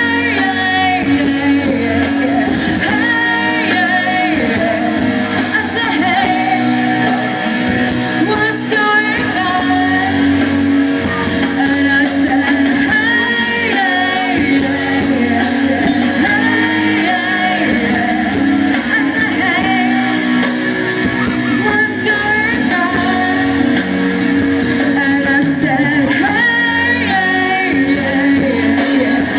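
Live rock band playing a song, a singer over amplified guitar.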